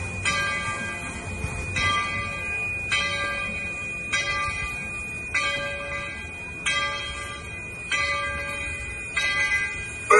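Steam locomotive bell ringing steadily, one clang about every second and a bit, over a low rumble from the engine. A louder, lower pitched sound cuts in right at the end.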